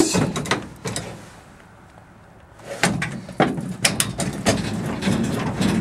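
Clunks, clicks and rattles of a Stearman biplane's rudder pedals and toe-brake linkage being pressed to test the brakes: a cluster of knocks at the start, a short lull, then a run of knocks and rattles through the last three seconds.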